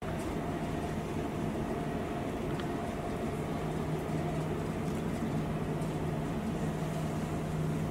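Steady mechanical drone of airport apron noise: a constant low hum with a fainter higher tone over a noisy rush, holding an even pitch throughout.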